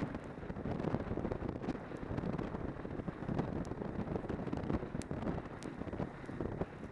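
Wind buffeting the microphone of a camera on a moving snowmobile, a dense fluttering rush with the snowmobile's running noise mixed underneath and a few faint sharp ticks.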